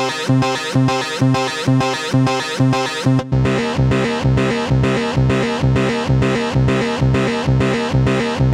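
Software synthesizer patch from Arturia's V Collection playing a repeating pattern of plucked-sounding notes, about two a second. About three seconds in the sound changes to a fuller, deeper tone under the same rhythm.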